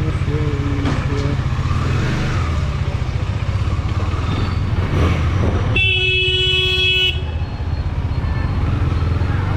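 KTM Duke 250's single-cylinder engine running with a steady low throb, and about six seconds in a vehicle horn honks once for just over a second.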